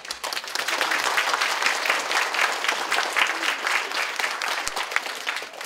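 Audience applauding, many hands clapping at once, thinning out and fading near the end.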